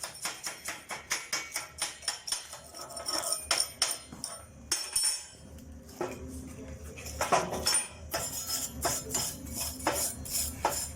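Hammer striking steel: a quick run of metallic taps at about four or five a second, then slower, irregular and louder knocks in the second half.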